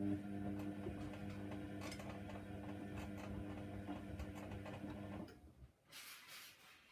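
Hoover Nextra washer dryer running mid-wash: a steady motor hum with light ticking that cuts off suddenly about five seconds in, followed by a brief swish.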